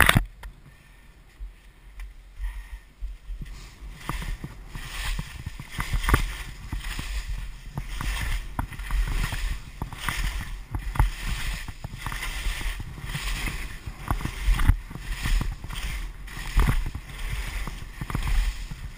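Skis scraping and swishing over bumpy, chopped-up snow on a steep mogul run, with frequent irregular knocks as the skis hit the bumps and a low wind rumble on the body-mounted camera's microphone. It starts with a brief loud burst and grows louder and busier about three or four seconds in.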